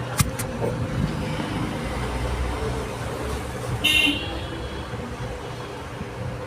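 Street traffic running steadily, with a short vehicle horn toot about four seconds in.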